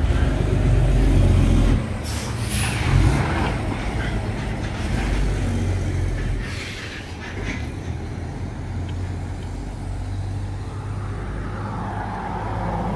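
A heavy semi-trailer truck loaded with hay bales drives past close by, its diesel engine rumbling loudest in the first couple of seconds, with a few short air-brake hisses. A car passes near the end.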